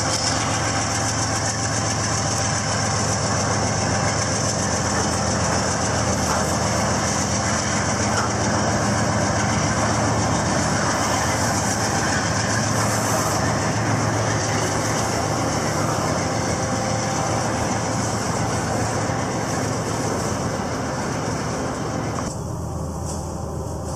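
Freight train passing: GE diesel locomotives run as they go by, then double-stack intermodal well cars roll steadily over the rails.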